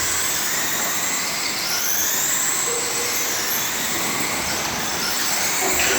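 Racing RC offroad cars' motors whining together, their high pitch rising and falling as the cars speed up and slow through the turns, over a steady dense noise.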